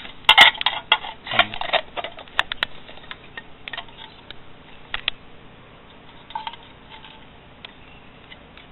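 Hard clear plastic packaging and a small plastic tank being handled: sharp crackles and clicks, loudest in the first two seconds, then a few scattered clicks.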